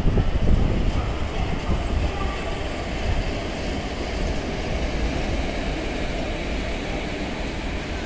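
Indian Railways WAP-4 electric locomotive running light past the platform: a steady rumble of its wheels on the rails, loudest at first and easing slightly toward the end.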